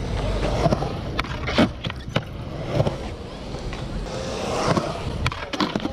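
Skateboard wheels rolling over concrete, a steady low rumble broken by several sharp clacks.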